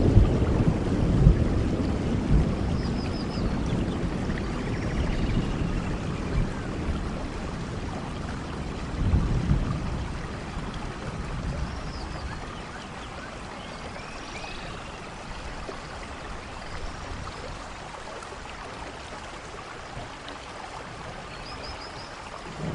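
Rainforest thunderstorm: steady rain with thunder rumbling. One rumble fades over the first few seconds, another low rumble swells about nine seconds in, and fresh thunder starts right at the end. Faint high chirps sound now and then over the rain.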